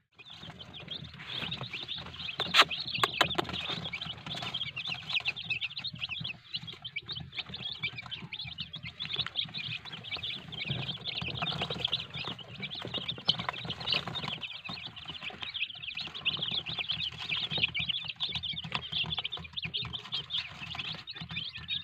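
A brood of newly hatched chicks peeping nonstop, many short high chirps overlapping into a dense chorus. A few sharp clicks come about two to three seconds in.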